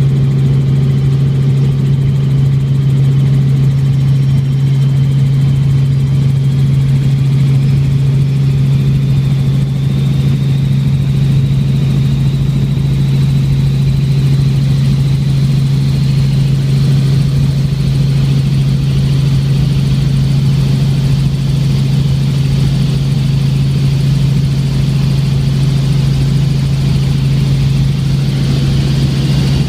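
Helicopter in flight heard from inside the cabin: a loud, steady low drone of engine and rotors, with a high turbine whine that slowly rises in pitch.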